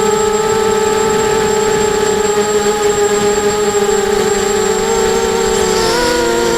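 Racing quadcopter's brushless motors and propellers whining steadily in flight, several close pitches from the separate motors, which shift slightly about six seconds in as the throttle changes.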